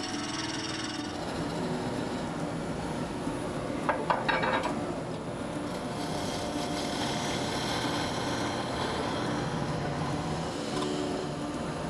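Wood lathe spinning a segmented wood blank while a turning tool cuts it, a steady scraping, rasping sound of the cut. About four seconds in there is a short clatter of sharp knocks.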